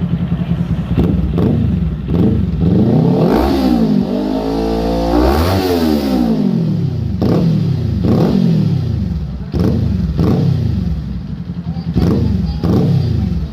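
Kawasaki Z400 parallel-twin engine idling, then revved through a Two Brothers Racing exhaust: one longer rev climbing and falling back around the middle, then a run of short throttle blips.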